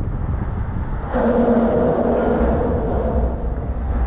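Steady low rumble of traffic on the bridge overhead. About a second in, a louder, steady humming drone joins it and holds.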